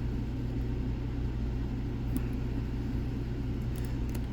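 Steady low background hum, with a few faint light clicks about two seconds in and again near the end as a pick works the lock's pins.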